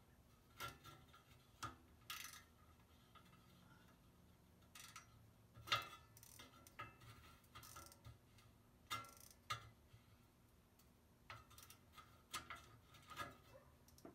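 Irregular small metallic clicks and clinks of hand tools and bolts, a dozen or so spread out with quiet between, as bolts are worked in by hand.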